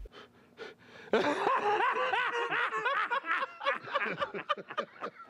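A person laughing, a run of quick, high-pitched giggles that starts about a second in and trails off into separate short bursts.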